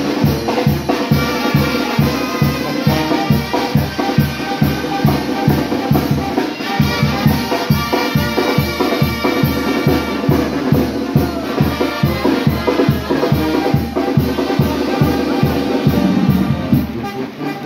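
Background music with a steady drum beat of about three beats a second under sustained instrument lines.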